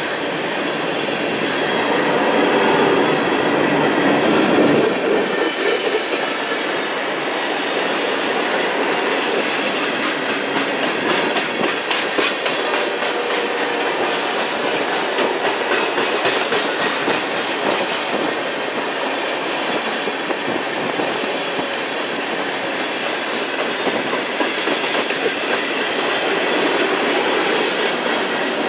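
Freight train of covered hoppers and tank cars rolling past close by: a steady rumble of steel wheels on rail, louder and deeper a few seconds in, with rhythmic clicking as the wheels cross rail joints.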